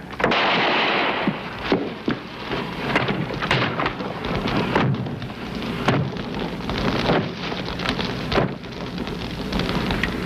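Gunfight: a string of gunshots, irregular, about one a second, over a steady crackling noise from a fire burning against a log wall.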